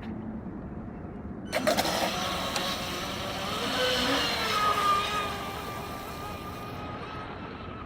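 Electric RC speedboat's brushless motor and propeller starting suddenly about a second and a half in with a high whine that shifts in pitch as the boat runs at speed on the water, then fading as it moves off.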